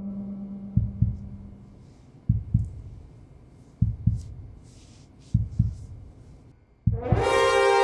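Heartbeat sound effect: pairs of low thumps, lub-dub, about every second and a half, five in all, over a low hum that fades away. Near the end a loud sustained music chord swells in.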